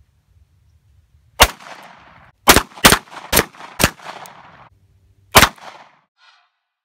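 Six pistol shots, each followed by a short echo: a single shot, then about a second later four in quick succession, then a sixth about a second and a half after.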